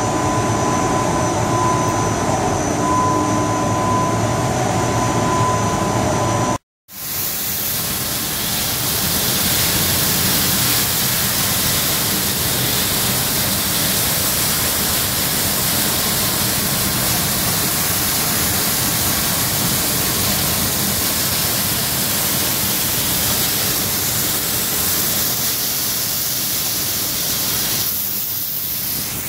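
Industrial pasta-line machinery running with a steady hum and whine. After a sudden cut about seven seconds in, a steady hiss of short-cut elbow pasta pouring from a chute into a bin.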